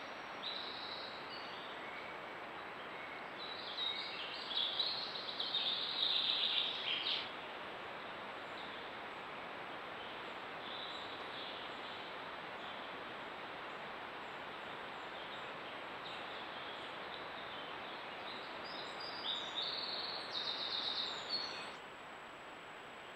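Small forest songbirds singing in two spells, about four seconds in and again near the end, over a steady background hiss with a thin high whine.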